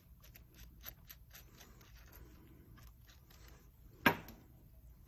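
Small metal standoff parts handled on a tabletop: light clicks and taps of the pieces against each other, with one much louder knock about four seconds in.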